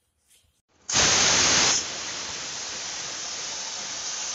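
Usha Shriram pressure cooker whistling: steam hisses out from under the weight on the vent, starting suddenly about a second in, loudest for under a second, then going on as a steady hiss. This is the cooker's first whistle, the sign that it has come up to pressure.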